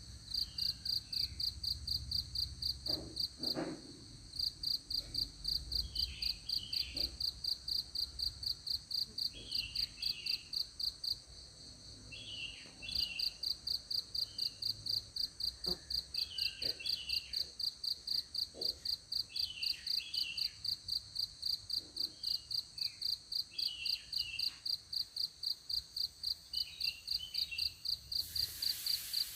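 High-pitched insect chirping: a rapid, evenly spaced pulse that keeps going and pauses twice, with scattered short bird chirps and a few faint taps.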